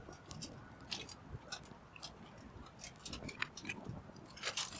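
Aluminium foil being handled around food for foil-baking: a scatter of light crinkles and small clicks.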